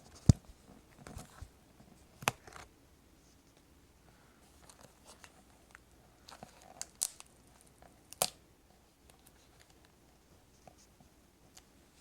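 Keyboard backlight sheet being peeled off its adhesive inside a MacBook Pro, with soft scraping and tearing and a few sharp clicks from tool and part handling, the loudest just after the start.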